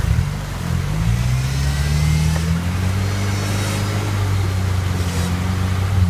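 Toyota-based rock buggy's engine revving up over the first second or so, then held at steady revs under load as the buggy crawls up a waterfall ledge. Rushing creek water runs underneath.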